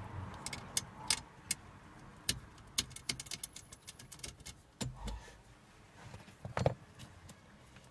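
Light metallic clicks and clinks of a steel mounting bar and its bolts being handled and fitted by hand, with a duller knock about five seconds in and a louder knock about two-thirds of the way through.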